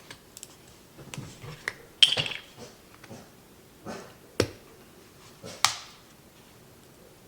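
A handful of separate light clicks and knocks, the loudest about two seconds in, as containers and a measuring cup of heavy cream are handled on a kitchen counter.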